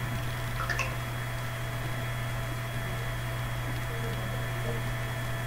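Steady low hum with an even hiss of background room noise, and a faint short tick about a second in.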